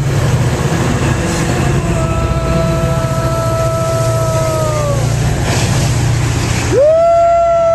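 Metra commuter train's diesel locomotive going by close, its engine running with a heavy pulsing rumble. A long held tone comes in about two seconds in and sags away near five seconds, and a louder held tone rises in near the end.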